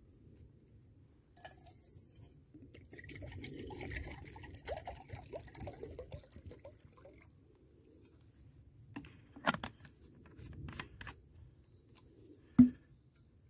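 Liquid pouring into a cook pot for a few seconds. Then come a few sharp clicks and one loud knock near the end, which is the loudest sound.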